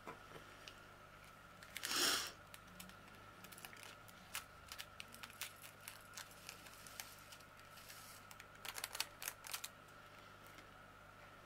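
Small plastic bags of diamond painting drills handled by fingers: scattered light clicks and taps, a quick cluster of them near the end, and one brief louder rustle about two seconds in.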